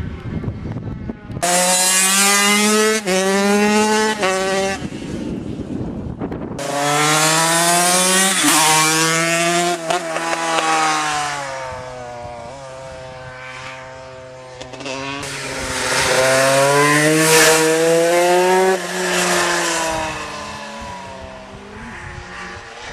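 Racing motorcycle engines at full throttle, their note rising through the gears with short breaks at each upshift. The loudest passes come about a third of the way in and again about three-quarters through.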